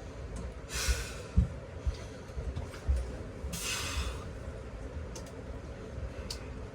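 Two loud breathy puffs, one about a second in and one near the middle, with a few scattered low thumps in between.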